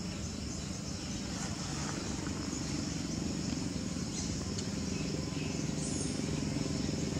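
A motor engine running steadily, its drone slowly growing louder, over a steady high buzz.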